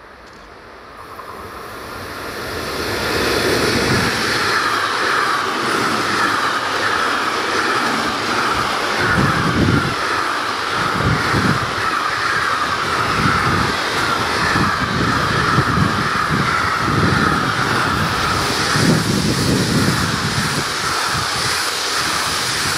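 An electric locomotive hauling a long container freight train passes close by. Its rolling noise builds over the first three seconds or so, then the container wagons run past in a steady loud rush of wheel-on-rail noise. From about nine seconds in there are repeated low knocks as the wheelsets go by.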